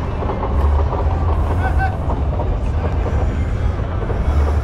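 Loud street-gathering din: a steady low rumble with music mixed in.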